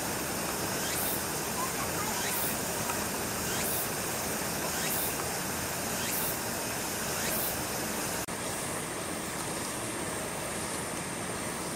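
Steady hiss of heavy rain. A high rising chirp repeats about once a second and stops about eight seconds in.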